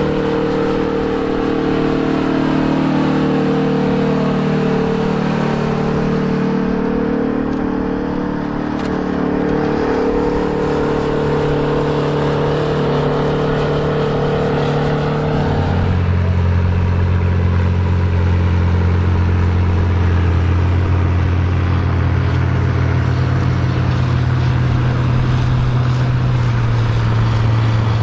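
Big farm tractors' engines working under load while plowing: a steady engine drone whose pitch sags over the first few seconds, then, about halfway through, a different, deeper-pitched engine sound takes over and holds steady.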